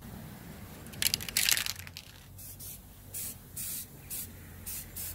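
Aerosol spray can of black paint hissing in short bursts: one longer spray about a second in, then several quick puffs, dusting black over a painted motorcycle frame.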